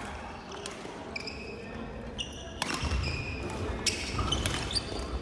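Badminton rackets striking shuttlecocks with sharp hits every second or so, mixed with several short squeaks of sports shoes on a wooden court floor.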